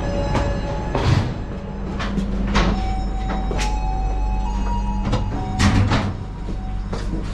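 Inside an Indonesian intercity passenger train: a steady low hum from the coach's machinery, with a handful of sharp knocks and clatters from the vestibule's sliding inter-car doors and door fittings, about five in all.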